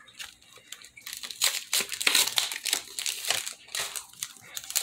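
A foil Pokémon booster pack wrapper crinkling and crackling in the hands as it is handled and opened, starting about a second in.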